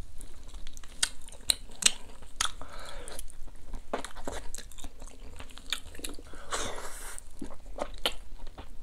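A person chewing and biting tender boiled duck meat, with many small sharp mouth clicks.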